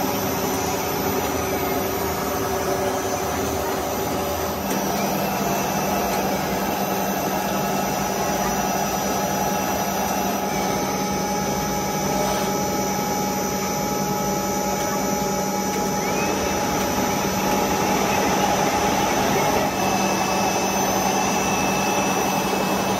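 Plastic extruder line running: a steady mechanical hum and whine from the feed motor and extruder drive. A lower hum sets in about five seconds in and holds.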